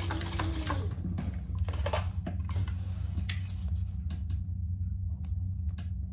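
Sewing machine stitching, the needle clicking about four times a second over a motor whine that slows and stops about a second in. Then fabric rustling and a few sparse light clicks as the piece is pulled from under the foot and the threads handled, over a steady low hum.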